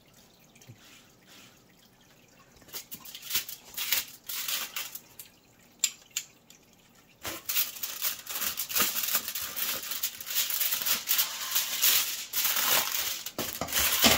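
Foil insulation liner inside a cardboard shipping box crinkling as hands cut it open and pull it back. It is quiet for the first few seconds, then comes in scattered crinkles, and becomes a continuous crackle about seven seconds in.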